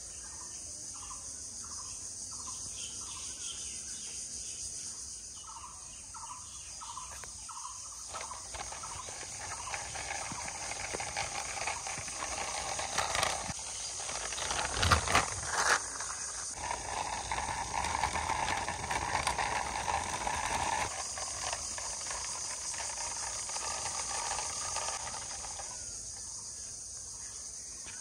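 A steady high-pitched insect chorus, with runs of short chirps repeating about three times a second near the start and again around six seconds in. A few sharp knocks come about halfway through.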